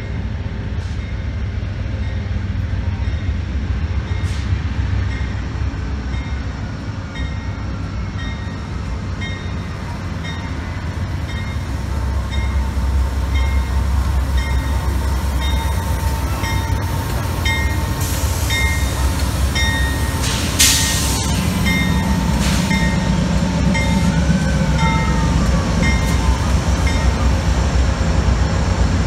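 Amtrak passenger train with GE Genesis diesel locomotives rolling slowly along the platform, engines rumbling and getting louder as the locomotives draw alongside about twelve seconds in. A bell rings evenly, about three strokes every two seconds, for the first eighteen seconds or so. A short burst of air hiss comes about twenty seconds in, and a brief squeal a few seconds later.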